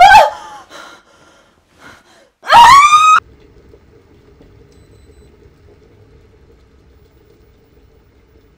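A woman gasps loudly awake. About two and a half seconds in she gives a short rising scream that cuts off suddenly. After that comes the low, steady rumble of an electric kettle heating water, bubbling.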